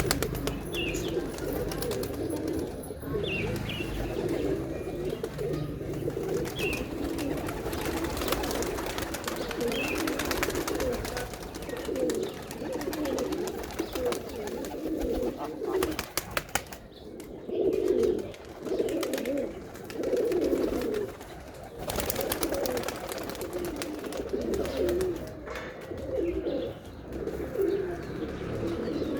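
Domestic pigeons cooing over and over, low throaty warbling coos from several birds overlapping, with a few distinct coos about a second apart past the middle. Scattered clicks and faint higher chirps run underneath.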